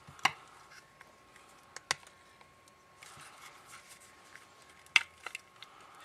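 A few sharp plastic clicks and taps as a handheld radio's plastic housing and chassis are handled and pressed together, with a faint rustle in between; the loudest click comes about five seconds in, followed by two small ones. A faint steady high hum sits underneath.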